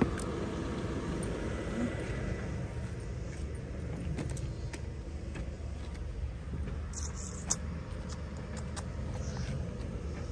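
Steady low outdoor rumble with a few faint clicks and knocks from items being handled, and one sharp click at the very start.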